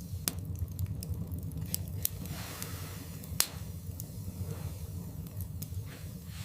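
Log fire burning in a fireplace: irregular crackles and sharp pops, the loudest about three and a half seconds in, over a low steady rumble.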